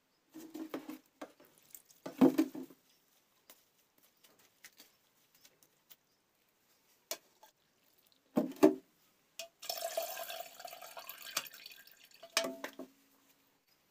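Chopped leafy greens washed by hand in a steel plate of water: intermittent splashing and dripping with light clinks of the metal plate, a louder clatter about eight seconds in and a longer stretch of splashing from about ten seconds in.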